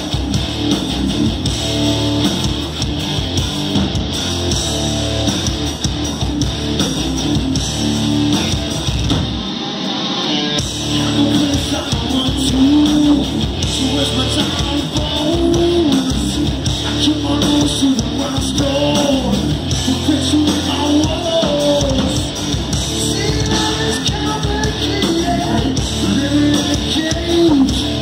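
Live heavy rock band playing loud: electric guitars, bass and drums with a singer, heard from the crowd in a large hall. The drums and bass drop out briefly about ten seconds in.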